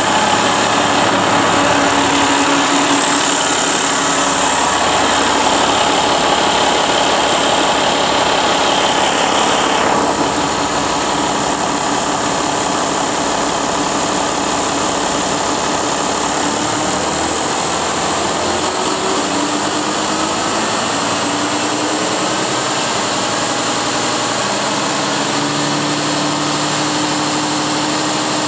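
Mercedes-Benz OM471 inline-six diesel power unit running steadily. Its upper hiss eases slightly about ten seconds in.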